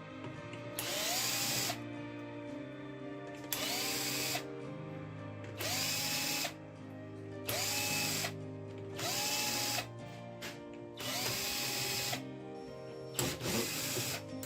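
Electric screwdriver running in six short bursts of about a second each, each spinning up quickly to a steady whine, with a few sharp clicks near the end.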